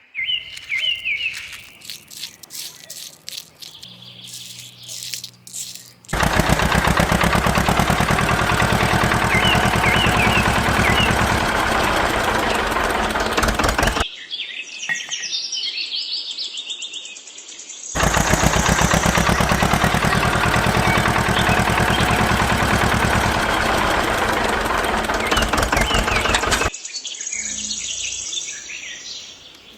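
A small motorized tool running loud and fast in two bursts of about eight seconds each, starting and stopping sharply, with birds chirping in the background.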